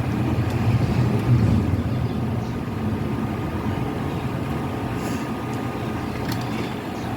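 A small motor or fan running steadily, with a few faint clicks near the end.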